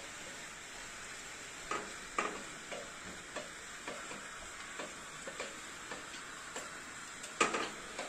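A steady hiss with a series of short clicks and knocks, about one or two a second, the loudest ones about two seconds in and near the end.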